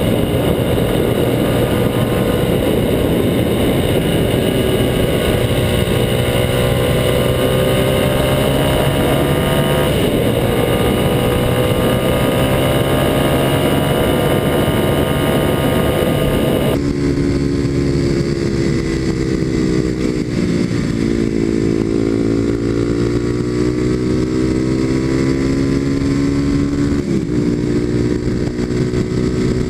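Kawasaki KLX250SF supermoto's single-cylinder engine through a Muzzy aftermarket exhaust, running under way on the road, its note rising slowly and dipping briefly three times. About two thirds of the way through, the sound turns duller.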